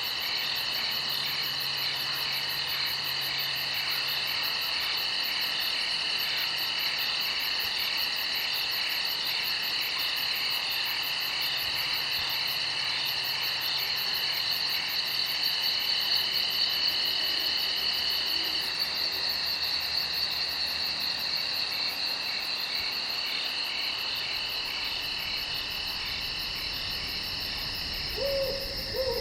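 Night chorus of crickets chirping: several high, steady trills overlap, some pulsing rapidly. A brief lower call comes near the end.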